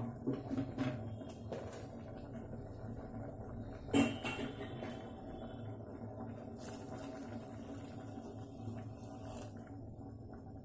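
Khichdi of vegetables and dalia heating in an open pressure cooker, with a steady low hum and faint bubbling as it comes toward the boil, and a sharp metallic clink of a utensil against the pot about four seconds in.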